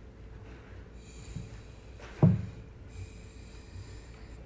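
Quiet library room ambience with a steady low hum, broken about two seconds in by one short, loud, low thud-like sound.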